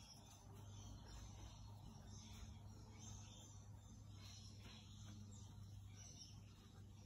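Faint scratchy swishes of a flat paintbrush stroking across canvas while blending paint, over a low steady hum.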